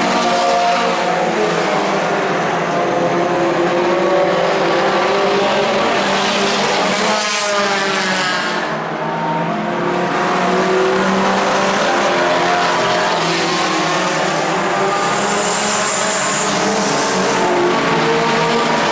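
Several mini stock race cars running at speed in a pack, their engine notes rising and falling as they go round. A little after seven seconds in, one car passes close with a falling sweep in pitch.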